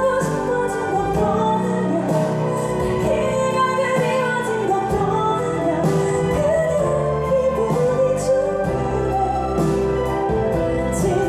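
A woman singing a slow ballad solo into a microphone, her sustained melody over a soft backing track of held instrumental chords.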